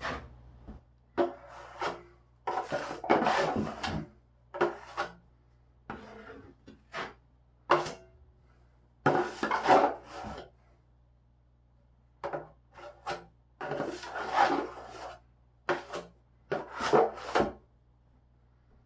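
Drywall knife scraping wet joint compound, in a series of short, uneven strokes separated by brief pauses: mud being worked and spread over the drywall patch.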